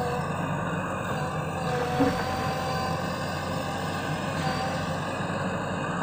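JCB 3DX backhoe loader's diesel engine running steadily as the machine manoeuvres, with a single brief knock about two seconds in.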